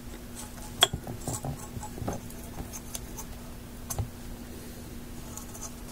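Small scraping and clicking of a hand tool on the corroded metal pins of a 6C33 power tube as the pins are cleaned, with scattered light ticks. A sharper click comes about a second in, and another as the glass tube is turned in the hands near the end.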